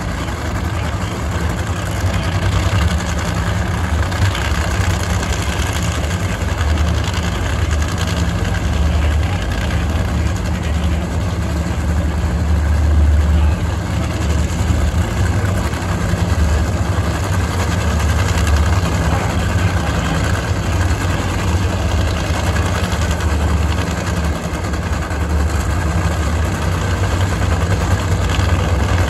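Supercharged nitromethane V8 engines of two nitro Funny Cars idling at the starting line: a loud, deep, steady rumble that rises and dips a little in level.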